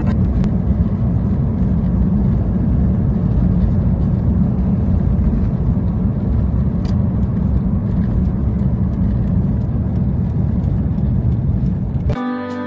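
Steady road and engine noise of a moving car, heard from inside the cabin, a low even rumble. Near the end it cuts off and music comes in.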